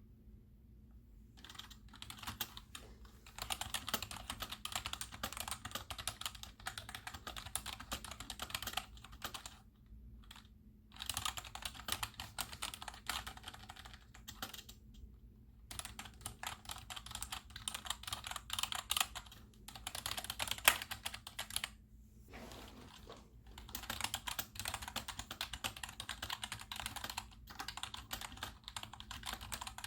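Rapid typing on a cheap GEODMAER 65% 'mechanical feel' keyboard, a non-mechanical keyboard, its keys clacking in runs of several seconds with short pauses between them.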